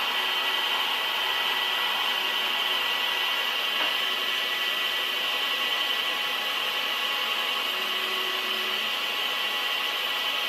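Large metalworking lathe running steadily in a machine shop: an even mechanical noise with a constant high whine.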